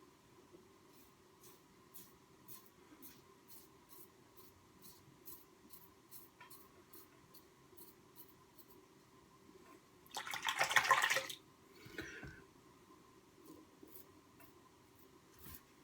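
Merkur 34c safety razor with a Polsilver blade scraping through lathered stubble in short strokes, about three scrapes a second. About ten seconds in comes a louder burst of water lasting about a second.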